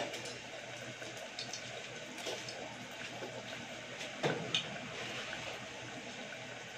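Oil sizzling steadily as breaded saba banana peels deep-fry in a small saucepan, with scattered small pops and two louder pops about four seconds in.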